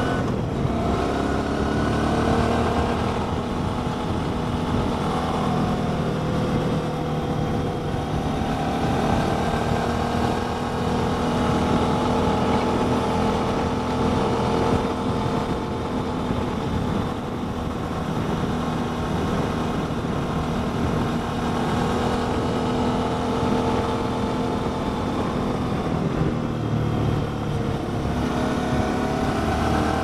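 Wind rushing over a riding motorcycle, with the 2019 Suzuki V-Strom 650's 645 cc V-twin engine running underneath at road speed. The engine note holds mostly steady and climbs near the end as the bike accelerates.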